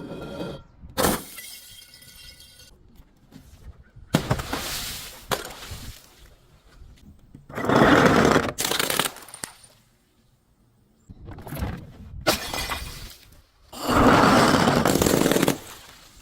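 Glass being smashed and crushed: a sharp crack, then several loud bursts of crunching and shattering, the loudest two near the middle and near the end.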